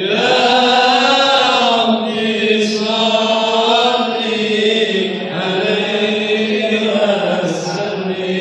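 Voices chanting a slow Islamic devotional chant in Arabic, with long held notes that slowly rise and fall.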